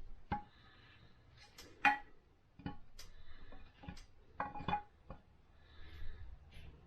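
Irregular sharp metallic clicks and knocks with brief ringing, the loudest about two seconds in and a quick cluster near the middle, as the camshaft is worked out through the cam bearings of a Ford 429 big-block V8.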